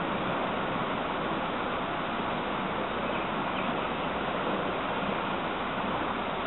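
Steady hiss at an even level, with no speech or other sounds standing out.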